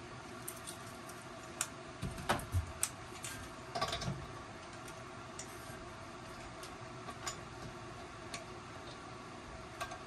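Handling of a propane hose and its metal regulator fitting: a cluster of clicks and knocks about two to four seconds in, then scattered light ticks as the fitting is threaded onto the propane tank's valve.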